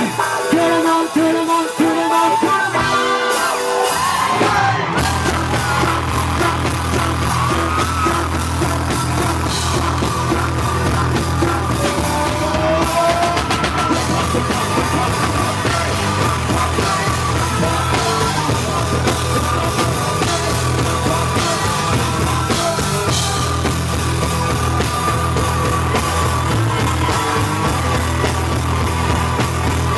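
Live rock band playing, with shouted and sung vocals over electric guitar and drum kit. The full band with heavy drums and bass comes in about four seconds in.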